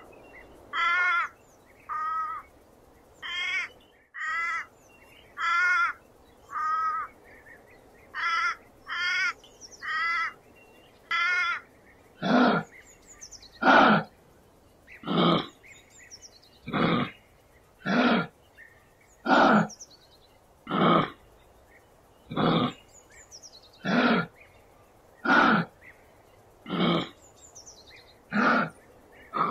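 An animal calling over and over: short calls with a wavering pitch about once a second, changing about twelve seconds in to louder, harsher calls about every second and a half.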